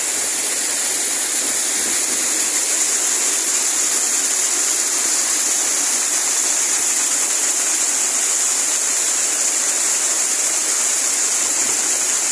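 Steady rushing of a waterfall with a drop of over 100 metres, an even hiss with no breaks.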